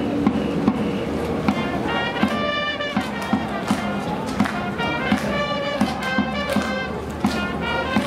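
A Japanese baseball cheering section's trumpets playing a batter's cheer tune, the melody coming in about two seconds in, over regular sharp drum beats.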